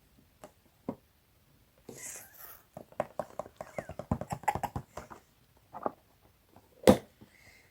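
Headphone box and packaging being handled: a run of quick clicks and rustles, then one sharp click near the end.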